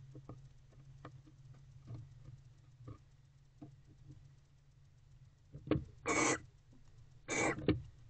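Barn owl in a nest box: faint scattered clicks and scratches as she shifts on the nest debris, then, from about six seconds in, a few short harsh hissing calls.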